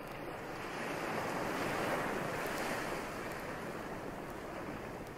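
Surf washing up on a beach: one long wave that swells to its loudest about two seconds in, then slowly ebbs away.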